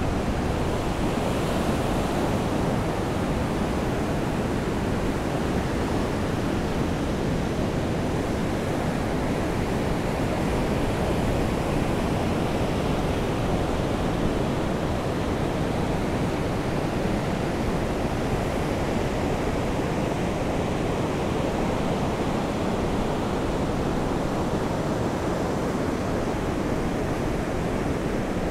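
Steady, even rushing of sea surf and rain, with no single wave break or other event standing out.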